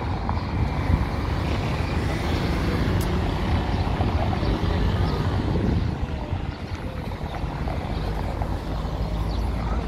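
Steady outdoor road-traffic noise from passing cars, with a heavy low rumble throughout.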